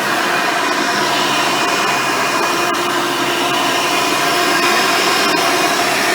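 Hoover Elite upright vacuum cleaner, with its original 7-amp motor, 7-blade fan and single-row brush roll, running steadily: an even whine with several steady tones over the rush of air, with a few faint ticks.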